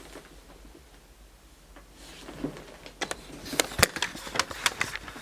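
A quiet stretch, then from about two seconds in an irregular run of sharp clicks and knocks, the loudest near four seconds.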